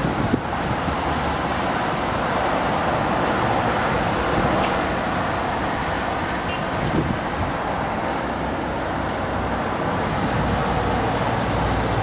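Strong storm wind blowing steadily, a dense rushing noise at an even level.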